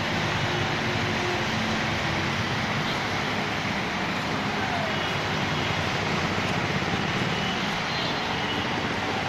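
Steady noise of heavy rain mixed with road traffic, with a low, continuous vehicle engine hum underneath.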